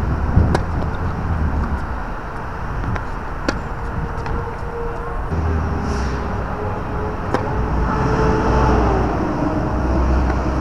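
Tennis rackets striking the ball: a few sharp pops several seconds apart during a rally. They sit over a steady low background rumble.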